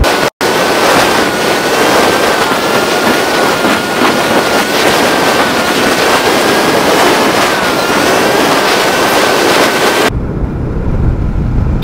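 Wind rushing over the microphone of a motorcycle moving at road speed, a dense steady hiss with a thin, slightly wavering whine in it. About ten seconds in the wind hiss drops away and a lower rumble of engine and road comes up.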